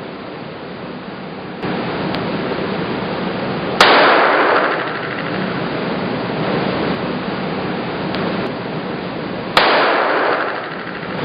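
Two gunshots about six seconds apart, each sharp crack trailing off in a short echo.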